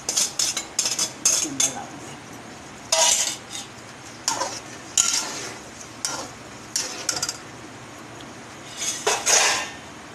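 Slotted metal spatula scraping and clinking against an aluminium cooking pot as chicken is stirred in oil. A quick run of strokes comes first, then about eight separate short scrapes with pauses between, the loudest near the end, over a faint steady hiss.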